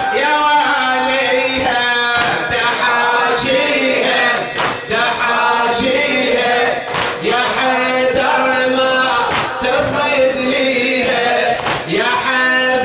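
A latmiyya: a male voice chanting a lament over a microphone, with a group of men's voices, and loud chest-slaps struck in unison about every two and a half seconds, six times.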